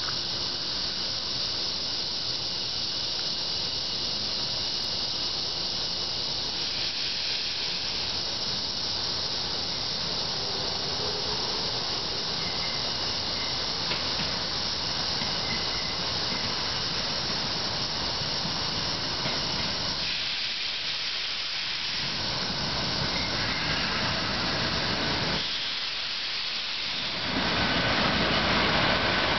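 St. Louis Car Co. Silverliner III electric multiple-unit commuter train approaching and pulling into a station, over a steady hiss. The train grows louder about two seconds before the end as the lead car comes alongside, with a thin high squeal.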